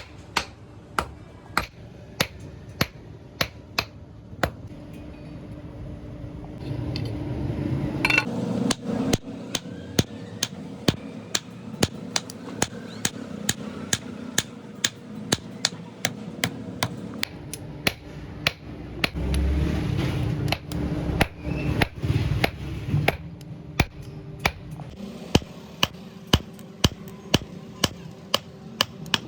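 Hand hammer striking steel on an anvil in an even rhythm, about two blows a second, forging a motorcycle connecting rod. A steady low hum rises in the middle and fades out near the end.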